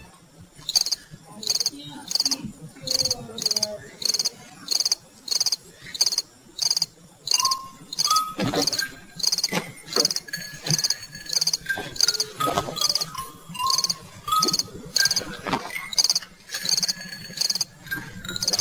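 Crickets chirping in a steady, fast rhythm of short high chirps. A second, lower chirping call joins about seven seconds in, and a few brief thuds fall partway through.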